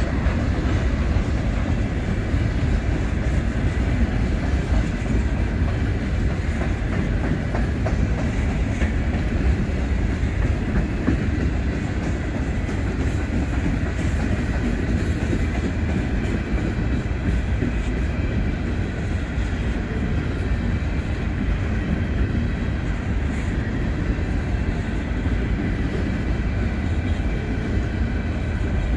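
Freight train rolling past on the rails, a steady, unbroken rumble with no change in loudness.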